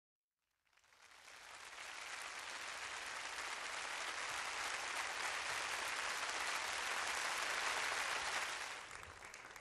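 Audience applause that fades in after a moment of silence, holds steady, and fades down near the end.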